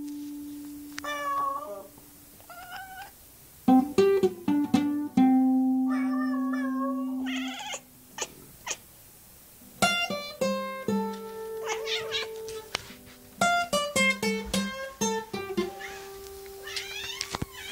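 Notes plucked on an acoustic string instrument, each ringing out and dying away, while a domestic cat meows again and again over and between them, some of the meows long and drawn out.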